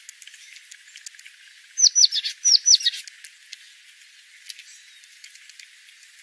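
A bird calling: two quick runs of three high, downward-sliding chirps about two seconds in.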